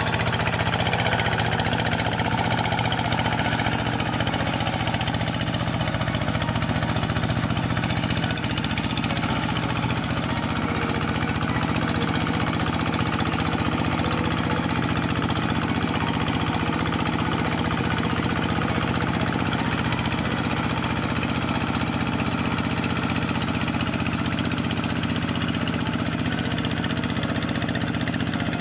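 Single-cylinder diesel engine of a two-wheel walking tractor with steel cage wheels, running steadily at an even speed as it plows wet paddy mud.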